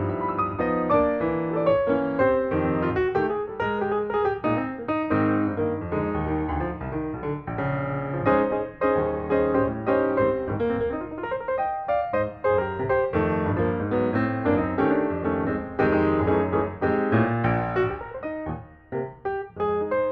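Background piano music, many notes played in quick succession, with a brief quieter passage near the end.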